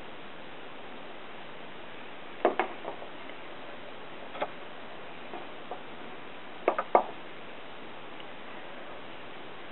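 Hands working cords into a knot make a few short clicks and taps over steady hiss: a pair about two and a half seconds in, one in the middle, and a quick cluster of three near the end.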